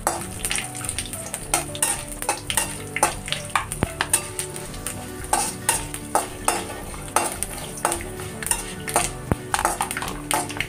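Metal spatula stirring and scraping whole spices (panch phoron, bay leaf, cinnamon) sizzling in a little hot oil in a metal kadhai, with repeated short scrapes against the pan. The spices are being fried briefly to release their aroma.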